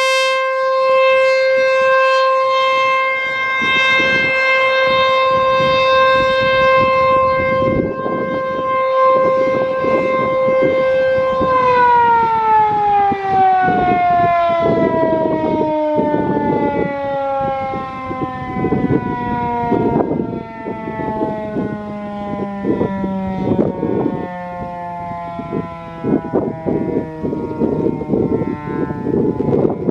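American Signal T-135 electromechanical outdoor warning siren sounding a loud, steady single-tone alert. About a third of the way in the tone is cut and the siren winds down, its pitch sliding slowly and steadily lower as the rotor coasts.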